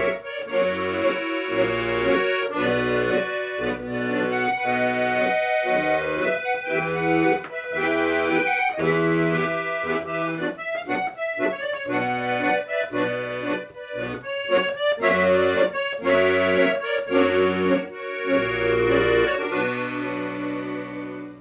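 Accordion music: a melody over sustained chords, with bass notes pulsing in a steady rhythm. It cuts off suddenly at the end.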